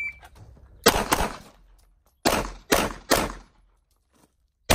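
Electronic shot timer beeps once, then pistol shots ring out: a quick pair about a second in, three more in quick succession a second later, and a single shot near the end.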